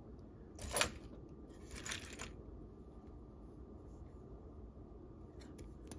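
Costume jewelry being handled and sifted in a pile: two short clinking, scraping bursts within the first couple of seconds, then a few faint clicks near the end.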